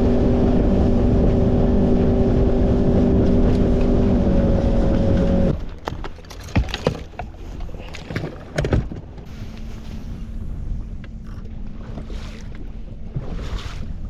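Boat motor running with a steady hum that cuts off suddenly about five and a half seconds in. After that, scattered clicks and knocks are heard over a quieter background.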